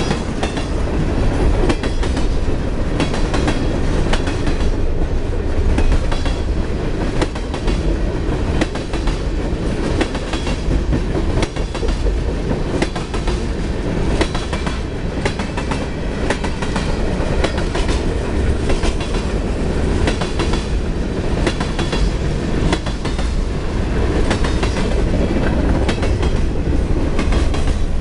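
Freight train of tank cars, boxcars and covered hoppers rolling past at close range: a steady, loud rumble with the wheels clicking over the rail joints.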